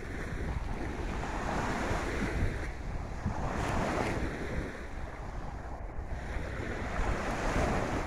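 Small waves washing up onto a sandy beach, the wash swelling twice, around the middle and near the end, over a steady low rumble of wind buffeting the microphone.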